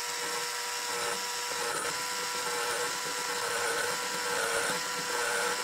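Surgical implant motor and handpiece turning a 4.7 mm implant drill at low speed as it cuts into an artificial jaw model. It makes a steady whine whose pitch sags briefly a few times.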